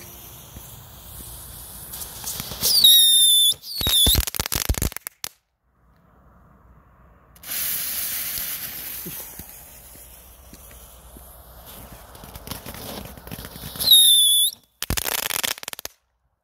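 Small consumer fountain fireworks (Vulcan Happiness, a category 2 fountain and fire-goblet combination) burning: a steady hiss of spraying sparks, then a couple of high whistles falling in pitch, followed by a rapid run of sharp crackling pops. It happens twice, about three seconds in and again near the end, after a freshly lit fuse and fountain start hissing partway through.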